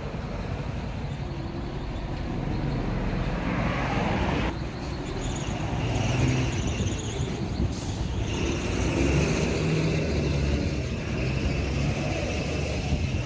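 Street traffic noise: a steady rumble of passing vehicles.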